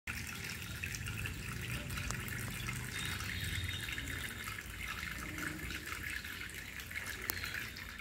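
Steady trickling and splashing of water in a small homemade plastic-bottle fountain, running from a spout into a cut-open bottle and falling in thin streams onto the stones below.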